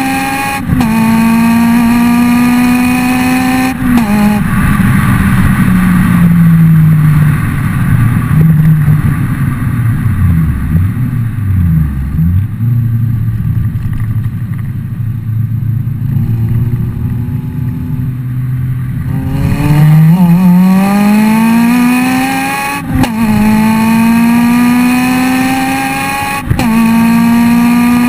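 Honda Civic EP3 Type R's K20 four-cylinder through a decatted Fujitsubo RM-01A cat-back exhaust, pulling hard at high revs with quick upshifts. After about four seconds the revs fall away as the car slows to a low, steady engine note. Near twenty seconds it accelerates hard again, rising in pitch, with two more upshifts.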